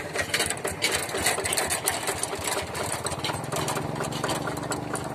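Yanmar Bromo Pro hand tractor's single-cylinder diesel engine running, with rapid, even firing beats; from about three and a half seconds in, its note becomes steadier.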